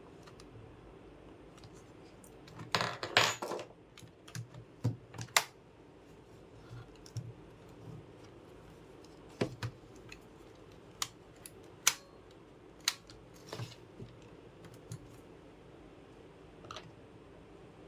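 Scattered sharp clicks and light knocks of computer hardware being handled during a RAM installation, with a short burst of rattling about three seconds in, over a low steady hum.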